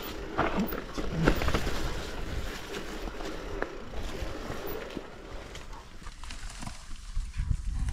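Wind rumble on the camera microphone with scattered knocks and rattles from a mountain bike on a rough dirt trail; the rattling eases off about six seconds in.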